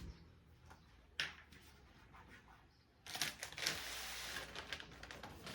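A single click about a second in, then from about three seconds a dense stretch of crinkling and rustling as packaged shopping items are handled.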